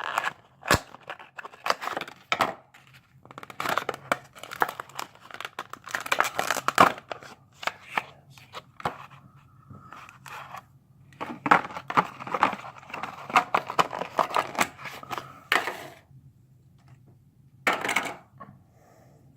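A model airplane's packaging being opened by hand: irregular rustling, crinkling and tearing of cardboard and plastic, with sharp clicks and taps. It comes in bursts, then stops about three seconds before the end after one more short burst.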